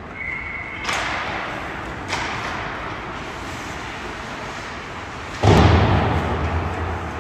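Ice hockey rink impacts: a brief high steady tone, then two sharp cracks about one and two seconds in, and a loud heavy thud near the end that rings on in the arena.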